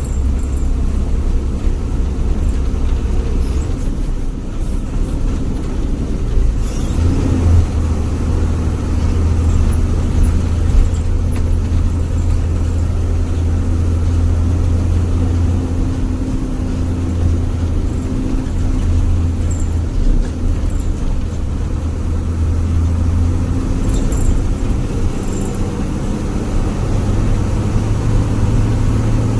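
Jaya Guna HG bus engine running on the road with a low, snoring drone ("ngorok"). Its pitch steps up about seven seconds in, then dips and rises a few times.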